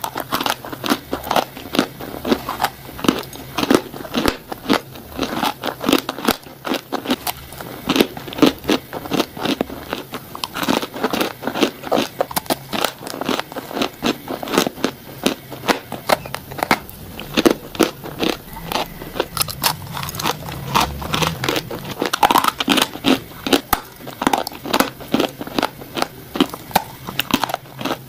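Repeated crisp bites into dry, crumbly, powdery 'cookie' blocks, with crunching and crumbling, two or three sharp bites a second.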